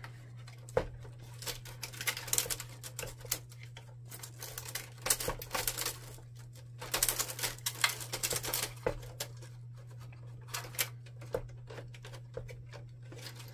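Irregular clicks, taps and knocks of the printer's plastic housing being handled and tugged at as a cover is worked loose, over a steady low hum.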